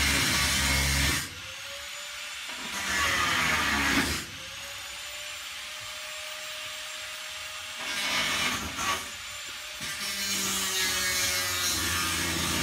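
Angle grinder working in bursts: about four loud stretches of grinding, a second or more each, with the motor's lighter whine rising and then holding steady in between.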